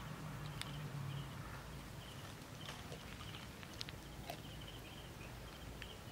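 Faint outdoor ambience: a low steady hum that fades after about a second and a half, short high chirps repeated in little groups, and a few scattered sharp clicks.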